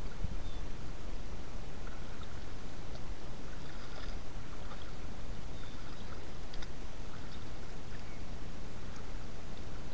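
Steady low rumble of outdoor background noise, with a few faint ticks and small splashes scattered through it.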